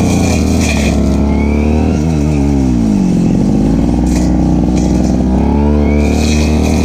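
Stihl FR3001 backpack brush cutter engine running loudly, its revs dropping about two seconds in and then picking up again.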